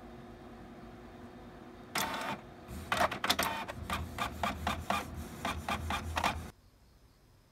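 Desktop printer at work: a short whirr about two seconds in, then a run of quick mechanical strokes, about three a second, over a low motor drone, which cuts off abruptly about a second before the end.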